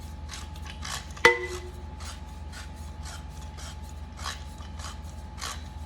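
Metal parts of a projector stand being screwed and tightened together by hand: short rasping scrapes, about three a second, with one ringing metal clink about a second in.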